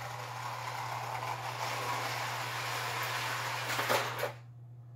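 Lionel 2056 O-gauge toy steam locomotive running along three-rail track toward its cars, a steady running noise from motor and wheels that grows slightly louder. A short clank near four seconds in as it couples to the Pullman cars, then the running stops abruptly.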